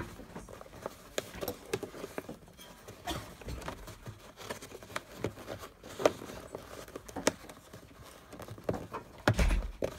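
Irregular small clicks, knocks and rustles of hands handling a seatbelt-sensor wiring connector and the floor carpet of a car, with a heavier thump near the end.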